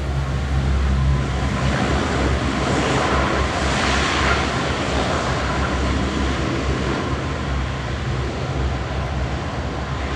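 Lockheed P-3C Orion's four Allison T56 turboprop engines running as the aircraft rolls along the runway on its landing. The rushing engine noise swells to its loudest about four seconds in as the aircraft passes, then eases, over a steady deep hum.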